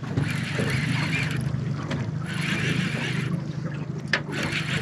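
Boat's outboard motor running steadily at low speed, with water and wind noise over it and a sharp click about four seconds in.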